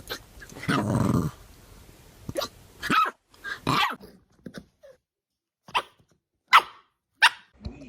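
A dog hiccupping: a string of short, sharp hics, the last three coming about every 0.7 seconds, after a longer, lower growl-like sound about a second in.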